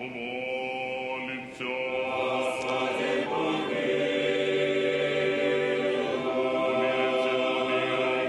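Orthodox church choir singing a liturgical chant in long, sustained chords that shift to new notes every few seconds.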